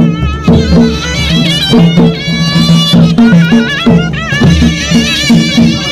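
Traditional Himachali folk music: a reedy wind-instrument melody with wavering ornaments over a steady, repeating beat.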